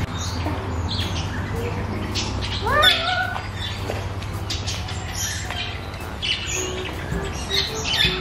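Birds chirping and calling in a walk-through aviary, with many short high chirps and one louder, sliding, cat-like call about three seconds in.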